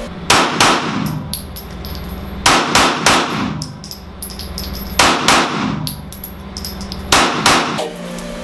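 9mm Glock 17 pistol fired in controlled pairs: four quick strings of shots about two and a half seconds apart, ringing off the walls of an indoor range. Some strings hold a third shot that went off as the trigger reset.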